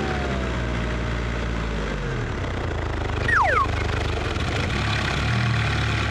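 A steady engine-like rumble with a low drone. A slow falling tone runs through the first two seconds, and two short, sharply falling whistles come about halfway through.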